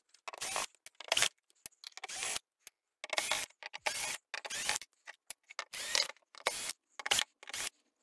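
Screwdriver backing out the screws of a TV's plastic rear cover, heard as about a dozen short mechanical bursts with brief gaps between them.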